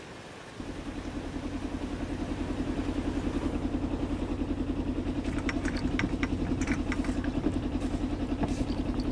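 Small sailboat's engine idling steadily with an even pulse, coming in about half a second in while the anchor is hauled up by hand. In the second half, a run of short light clicks from the anchor gear at the bow.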